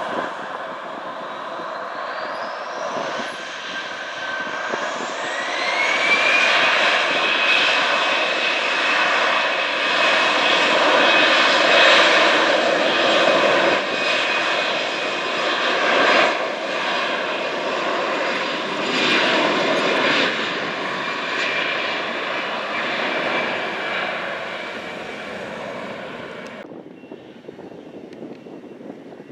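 Airliner engines spooling up, a whine rising in pitch, then running loud and steady before slowly fading. The sound cuts off suddenly near the end.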